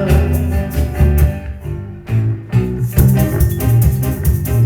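Live band playing an instrumental passage between sung verses: guitar and bass with percussion keeping a steady beat. The band thins out briefly about two seconds in, then comes back in fully.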